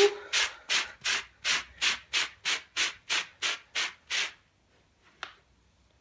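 Metal-pin cat slicker brush scraped in quick, even strokes through a shaggy rug's pile, about three strokes a second, combing cat hair and fluff out of it. The strokes stop a little over four seconds in, and a single short click follows about a second later.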